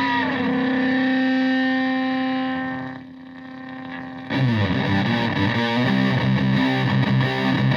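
Single-coil Stratocaster through a Marshall Supa Fuzz (Tone Bender MkII) fuzz pedal and a Twin Reverb-style amp. A held fuzzed note bends down and fades away; about four seconds in, a repeating fuzzed riff starts.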